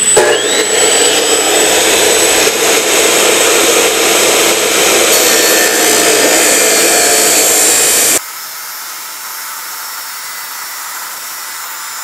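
A 2,300 W abrasive cut-off saw spinning up with a short rising whine and grinding through a steel pipe, over the steady running of a DeWalt DXV23PTA wet/dry vacuum that powers the saw through its tool-linked outlet. About eight seconds in, the sound drops abruptly in level and turns thin and high.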